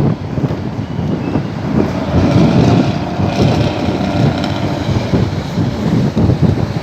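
Loud aftermarket 'jalibang' exhaust running with a rough, fierce snoring rasp ('ngorok'), its loudness rising and falling unevenly.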